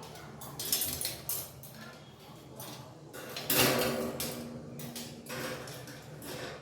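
Metal table-fan parts being handled during assembly, clinking and knocking several times. The loudest clank comes about three and a half seconds in and rings briefly.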